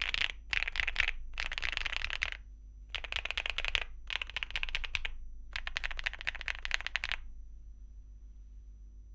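Typing on an Akko Mineral 02 mechanical keyboard with Akko Mirror linear switches and Cherry-profile double-shot ABS keycaps: quick runs of keystrokes in several short bursts, stopping about seven seconds in.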